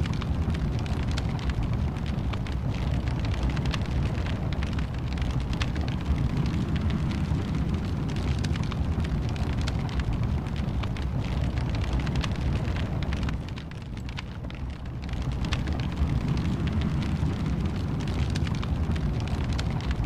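Wood fire burning in a fireplace: a steady low rumble with frequent sharp crackles and pops, briefly softer about two-thirds of the way through.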